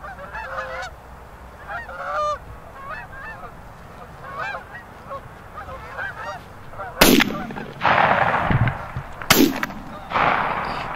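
A flock of Canada geese honking overhead, many overlapping calls, then two loud shotgun shots about two seconds apart near the end.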